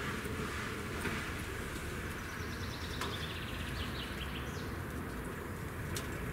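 A steady low background rumble with a few faint clicks; about two seconds in, a small bird sings a rapid run of short notes that fall in pitch, lasting about two and a half seconds.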